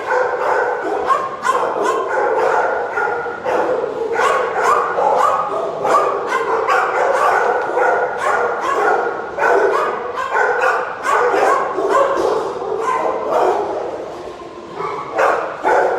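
Many dogs barking and yipping at once in a shelter kennel room, a continuous overlapping din with some whimpering, echoing off hard walls.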